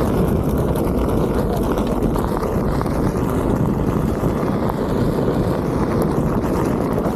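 Wind rushing over an action camera's microphone, with a steady low rumble from riding a Onewheel GT electric board over a dirt trail.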